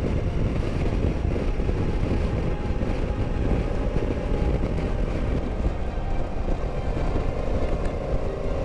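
Steady rumble of an adventure motorcycle cruising at highway speed, recorded from the bike itself, mixed with wind noise on the microphone.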